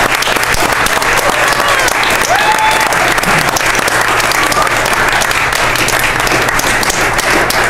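A crowd of guests applauding steadily, with a few voices whooping over the clapping.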